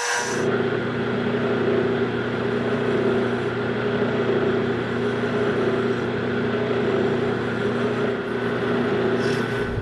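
Metal lathe running steadily under power, its motor and drive giving a constant hum while it machines a brass bushing.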